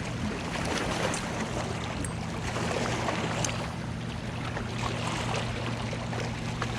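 Choppy lake water washing against a rocky shore, with the steady low hum of a motorboat engine out on the water.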